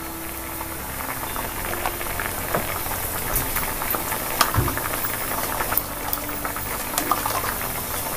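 Sambar boiling in a pot: a steady bubbling hiss with scattered pops of bursting bubbles.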